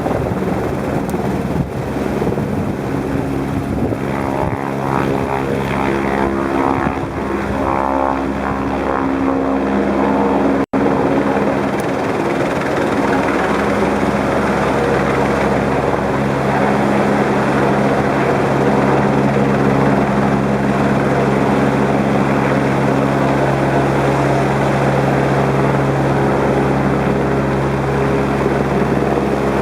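Helicopter engine and rotor running steadily in a continuous drone. The sound cuts out for an instant about ten seconds in.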